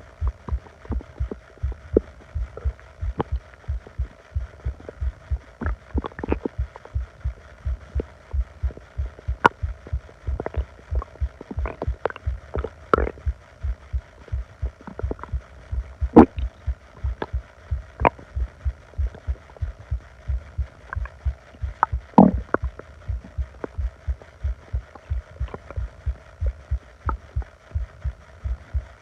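Upset stomach and intestines gurgling, picked up close against the belly: scattered short squeaks and gurgles, two louder ones in the second half, over a steady low rhythmic thudding.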